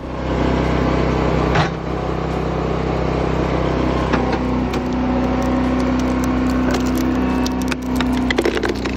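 A firewood processing machine's motor running steadily while wood cracks and splinters under it, with a sharp crack about a second and a half in and a run of clicks and crackles near the end.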